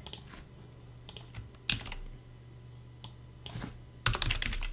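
Computer keyboard keystrokes: a few scattered key presses, then a quick run of typing near the end.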